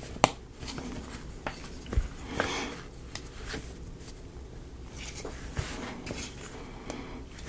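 Scattered light clicks, taps and rustles of small wooden model-kit pieces being handled and fitted together, with a sharp click about a quarter second in.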